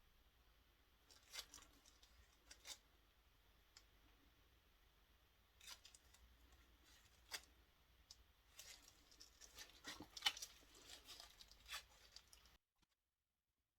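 Near silence with faint scattered clicks and rustles of small objects being handled, busiest in the last few seconds. The sound then cuts to dead silence.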